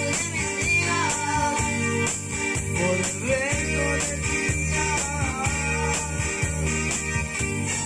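Live music on a Yamaha electronic keyboard: a steady accompaniment rhythm with bass and guitar-like strumming, and a man singing a gliding melody over it.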